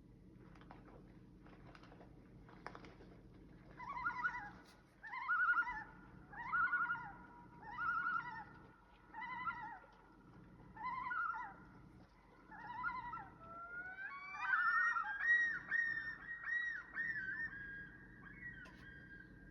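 Common loon calling: about seven repeated phrases roughly a second and a half apart, then a rising note leading into a rapid wavering call. A faint low hum runs underneath.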